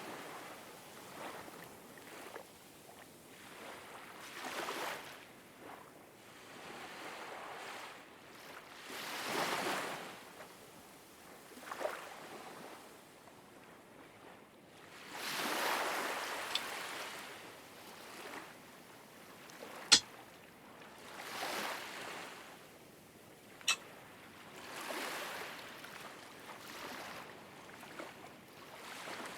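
Ocean surf: waves washing in, swelling and fading every few seconds. Two sharp clicks in the second half, a few seconds apart, stand out above the waves.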